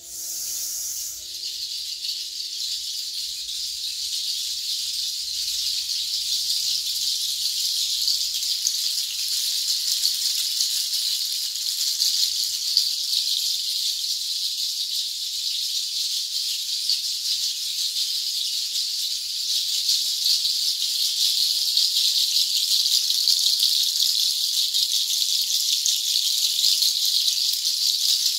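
A hand-held bundle rattle of many small dark pieces strung together, shaken continuously to make a dense, high, hissing shimmer that grows slowly louder. A faint low gong hum fades away in the first several seconds.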